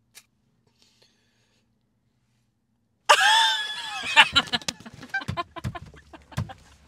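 About three seconds of near silence, then a man and a woman burst into loud laughter, the woman's high-pitched and shrieking, breaking into choppy bursts.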